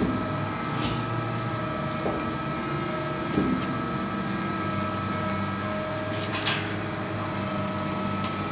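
Haco PPM 135-ton CNC hydraulic press brake running: a steady machine hum with a constant high whine, whirring tones that switch on and off, and a few sharp clicks.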